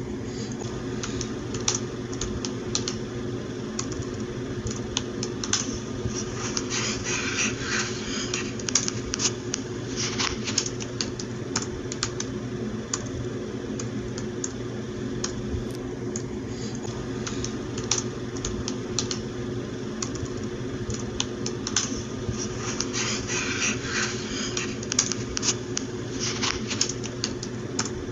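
Typing on a computer keyboard: a continuous, irregular run of key clicks with denser flurries now and then, over a steady low hum.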